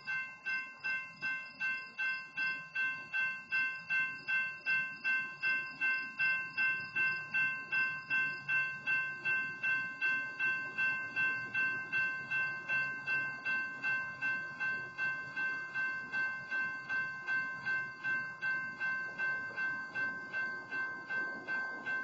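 Railroad grade-crossing warning bell ringing steadily at about two strikes a second, kept sounding because a stopped freight train is blocking the crossing, with a faint low rumble underneath.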